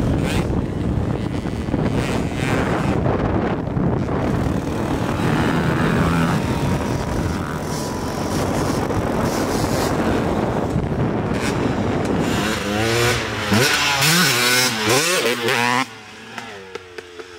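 KTM 250SX two-stroke dirt bike engine riding a motocross track, its pitch rising and falling sharply several times as the rider works the throttle close by, then dropping away suddenly near the end.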